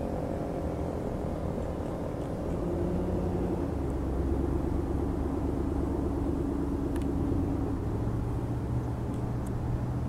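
The tail of a Federal Signal 508 outdoor warning siren winding down, its falling pitch fading out within the first second. Then a vehicle engine runs steadily with a low rumble.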